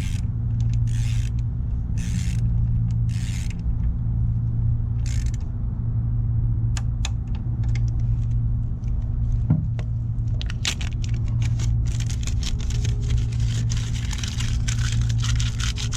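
Hand tools working on a motorcycle front brake caliper during reassembly. Rasping strokes come about once a second for the first few seconds, a single sharp click follows about ten seconds in, and a run of quick metallic clicks comes near the end, all over a steady low hum.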